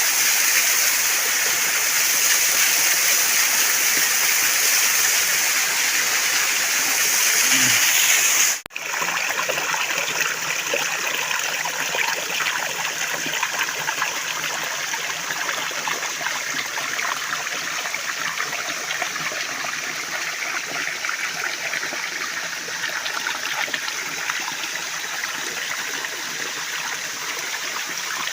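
Waterfall water rushing in a steady, unbroken hiss. An abrupt cut about nine seconds in leaves the rush running on slightly softer.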